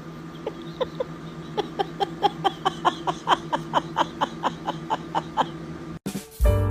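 A person laughing in a long run of quick, short giggles, about four or five a second, over a steady low hum; music starts near the end.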